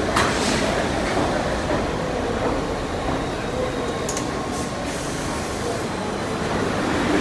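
Bombardier R62A subway train on the 6 line rolling into the station and slowing, a steady rumble of wheels on the rails. A few sharp clicks come near the start and about four seconds in.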